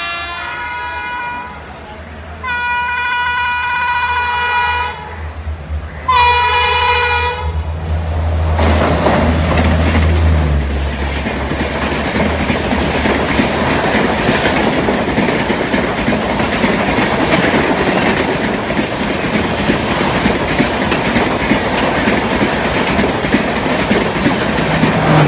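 Indian Railways WAP-7 electric locomotive honking madly: three blasts on its air horn, the middle one the longest, as it passes at speed. Then the Duronto express coaches rush past, with steady wheel rumble and clickety-clack over the rail joints.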